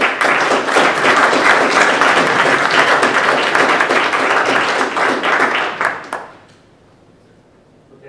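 Audience applauding: a dense patter of many hands clapping that starts at once, holds for about six seconds, then dies away.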